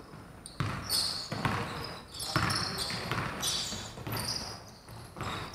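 Basketball being bounced on a hardwood gym floor, several separate bounces at an uneven pace, with short high-pitched sounds between them.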